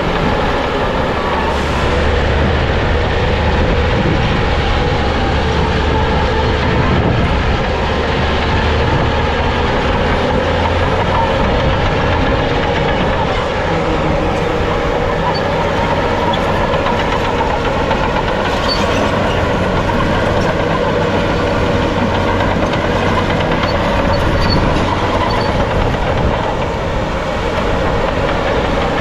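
Bulldozer's diesel engine running under load with the steady clanking of its steel crawler tracks.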